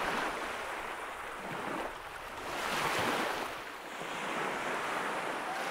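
Small waves washing onto a sandy beach, the surf noise swelling and fading about three times.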